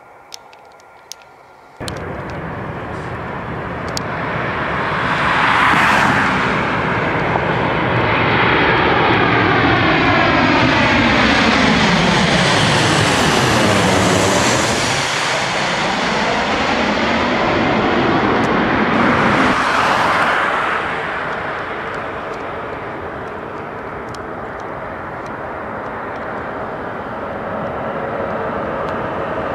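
Jet airliner passing close by. Its engine noise comes in abruptly about two seconds in, swells to a long peak with a sweeping, phasing rise and fall in pitch as it goes by nearest around the middle, then eases off.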